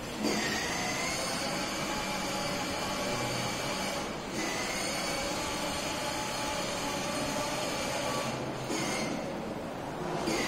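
Ride-on toy car moving across a tiled floor: a steady mechanical hum with several held high tones, dipping briefly about four seconds in and again near the end.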